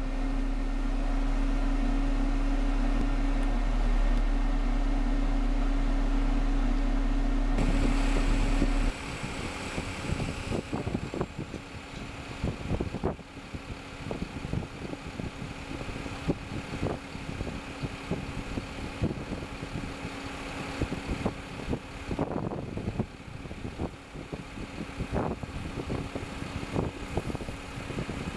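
Challenger WR9740 windrower running: at first a steady, loud low drone as heard inside the cab. About eight to nine seconds in, the sound changes to the machine running outside, with frequent irregular thumps over it.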